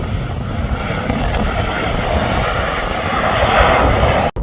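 Airliner engine noise passing, a broad rushing sound that swells louder toward the end and then breaks off abruptly in a brief dropout. Low rumble runs underneath throughout.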